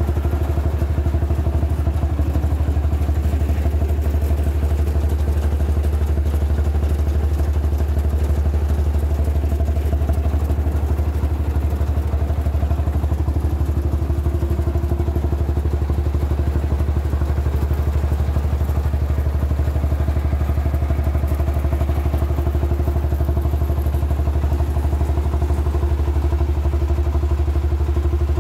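Portable rice milling machine running steadily under its engine. A loud, unbroken drone with a deep hum.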